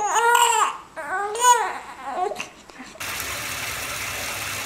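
Infant crying out twice in short, high, rising-and-falling wails, with a few fainter fussing sounds after. About three seconds in, a steady hiss of running bathwater takes over.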